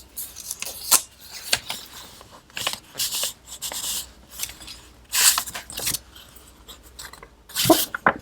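Paper pages of a handmade junk journal being turned and handled: rustling and light taps in several short bursts.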